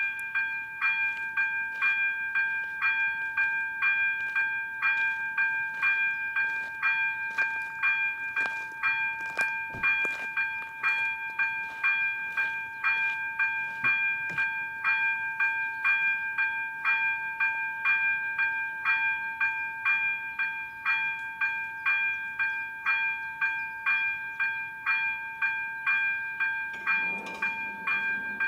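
Electronic bell of an AŽD 97 level-crossing warning signal ringing in even strokes, about two a second, warning that a train is coming. Near the end the barrier drive starts a low hum as the booms begin to lower.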